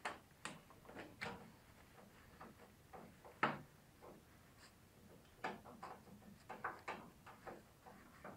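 Irregular clicks and light knocks of hand tools and parts being handled while a battery is being removed, about fifteen sharp taps, the loudest about three and a half seconds in.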